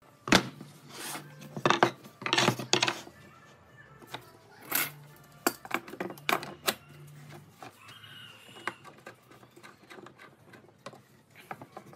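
Pine boards set down and knocked together on a wooden workbench, with a steel bar clamp handled against them: a quick run of sharp wooden knocks and clatters in the first three seconds, a few more between five and seven seconds, then lighter taps and rubbing.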